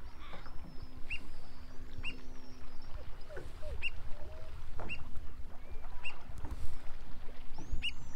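Black oystercatchers calling: short, sharp whistled notes repeated about once a second, with higher thin gliding whistles near the start and end. Small waves lap and wash at the shore underneath.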